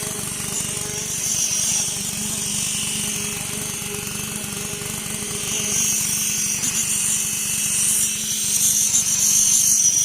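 Construction machinery running steadily with a low engine pulse, under a high grinding hiss that swells about a second in and again over the last four seconds.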